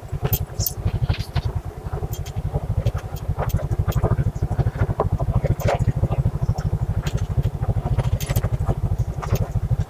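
Motorbike engine running at low revs with a fast, even low pulsing throughout, mixed with scattered clicks and rattles from the bike on rough ground.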